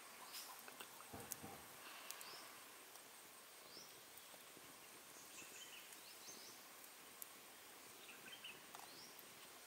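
Near silence: faint outdoor ambience with scattered short, high rising bird chirps and a few soft clicks.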